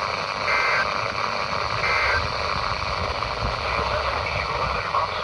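Weather radio on a weak, static-laden signal sounding two short screeching bursts of SAME digital data, the end-of-message code that closes a NOAA Weather Radio required weekly test. Heavy static hiss runs on after them, with a low rumble underneath.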